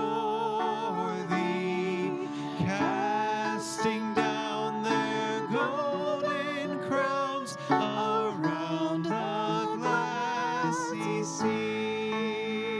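Instrumental church music: a melody with wavering held notes over a guitar-like plucked-string accompaniment.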